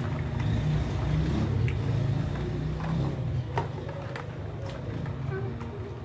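A steady low mechanical hum, with a few light clicks and splashes as plastic toys are moved about in a basin of water.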